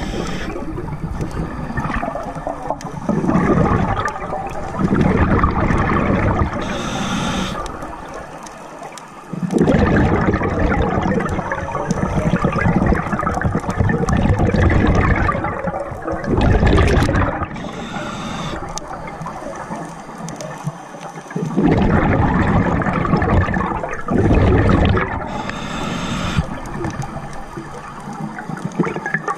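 Scuba diver breathing through a regulator underwater: long stretches of exhaled bubbles gurgling, broken three times by a short hissing inhalation.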